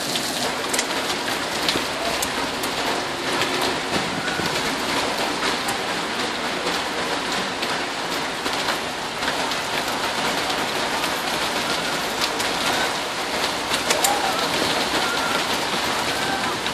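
Hail and rain pelting the ground and paving: a steady hiss of falling rain dotted with many sharp ticks of hailstones striking.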